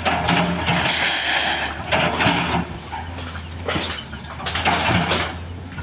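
A heavy machine's engine runs with a steady low hum, under irregular loud noisy bursts about once a second.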